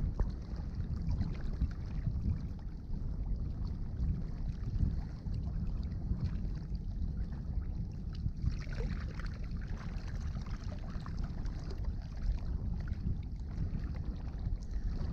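Wind buffeting the microphone: a steady low rumble, with faint scattered ticks above it.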